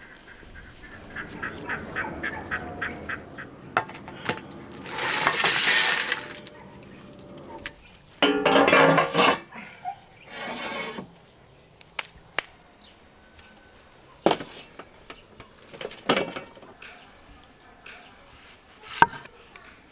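Outdoor food-prep sounds: a quick run of light ticks early on, a loud rushing noise about five seconds in, and a loud pitched call about eight seconds in, then scattered sharp knocks, ending with a large kitchen knife tapping on a wooden cutting board as it cuts into a tomato.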